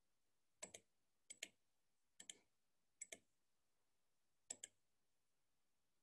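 Computer mouse clicking: five quick double clicks spread about a second apart, against near silence.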